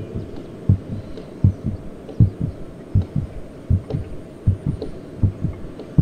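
A steady low thumping beat: a strong thump about every three-quarters of a second, with weaker thumps between.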